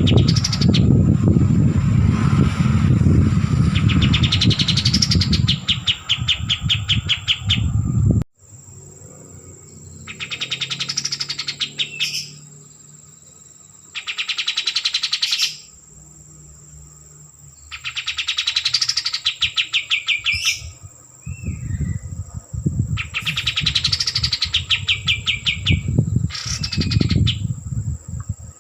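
A kapas tembak bulbul singing loudly in repeated phrases of fast notes, each about one and a half seconds long and coming every few seconds. A steady high-pitched whine runs underneath, and a low rumble sits under the song at the start and again near the end.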